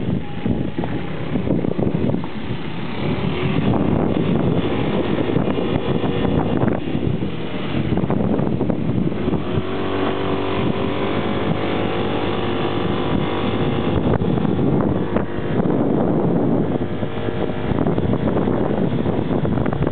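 Small motor vehicle's engine running steadily while riding a rough, muddy dirt track, with knocks and rattles from the bumps and wind on the microphone. The engine note is clearest and most even through the middle.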